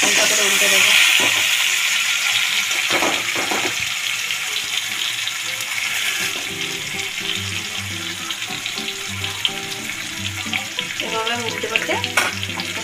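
Mustard oil sizzling steadily around a whole masala-coated fish frying in a kadai, loudest at the start and easing off a little.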